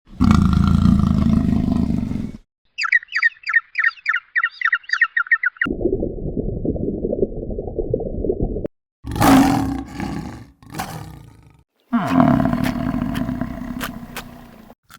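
A series of different animal calls cut one after another: a loud deep roaring call, then a quick run of high chirps at about four a second, then a low rough rumbling sound, short calls, and another deep roaring call near the end.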